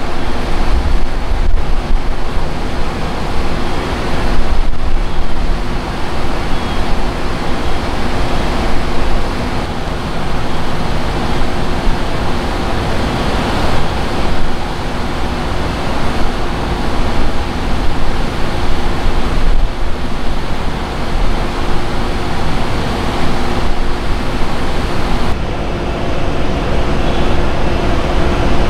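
Steady rumble of idling fire and emergency vehicle engines with a constant hum, mixed with wind buffeting the microphone.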